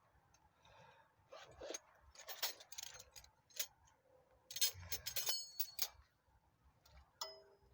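Metal wrenches clinking and rattling against each other as they are picked out and handled, with a few short metallic rings.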